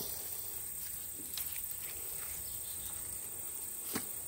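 Insects in the garden vegetation keep up a steady, high-pitched drone. A couple of short, faint clicks come at the start and again about four seconds in.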